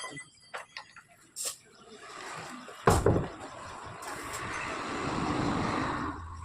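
Metal tools knocking during tyre work, with a heavy thump about three seconds in. A rushing noise swells alongside for about four seconds and cuts off near the end.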